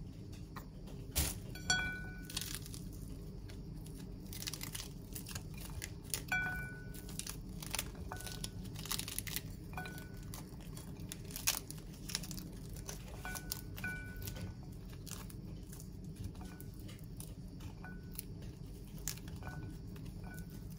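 Cutlery clinking and tapping on a plate at a meal, with crunching and rustling of food, over a steady low hum. Some taps ring briefly with a clear metallic ping.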